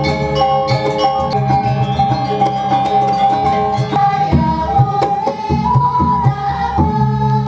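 Balinese gong kebyar gamelan music: struck, ringing metallophone notes and drum strokes under a long held melody line, with sharp accents a few times.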